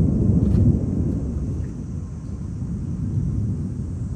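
Low rolling thunder rumble, loudest at the start and dying away over the next couple of seconds.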